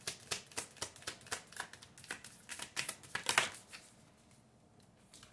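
A deck of reading cards being shuffled by hand: a fast run of crisp card flicks, several a second, that stops about three and a half seconds in.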